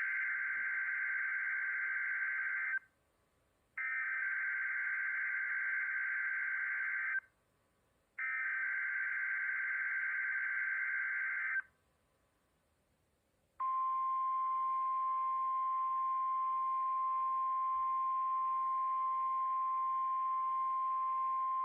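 NOAA Weather Radio test signal: three buzzing Specific Area Message Encoding (SAME) data bursts, each about three seconds long with a second's gap between them. After a two-second pause the long, steady single-pitch weather radio warning alarm tone begins.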